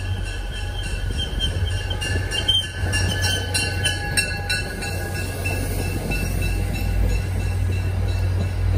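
MBTA commuter rail train passing on a curve, its wheels squealing against the rails in high, steady tones over a low rumble. A quick run of clicks from the wheels over the track comes about two to four and a half seconds in.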